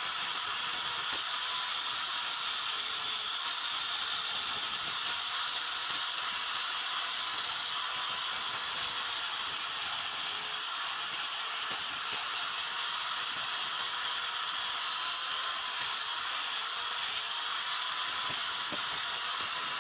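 Angle grinder running steadily with an abrasive disc against a rusty razor blade: an even abrasive hiss over a constant motor whine.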